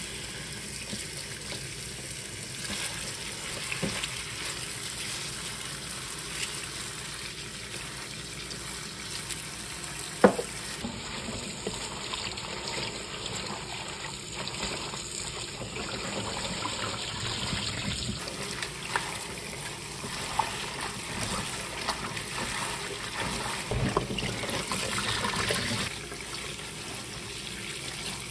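Kitchen tap water running steadily onto spring cabbage (bomdong) leaves in a bowl in a stainless steel sink, with splashing and leaf rustling as hands rinse them. A single sharp knock about ten seconds in.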